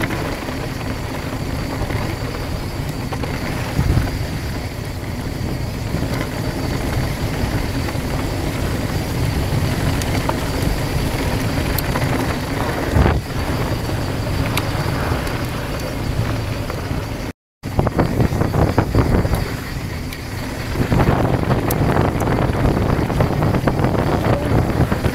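Mountain bike riding fast downhill on loose gravel: a steady rush of wind over the camera microphone and tyres crunching, with the bike rattling over bumps. The sound cuts out for a moment in the second half, and the clicks and rattles come thicker after it.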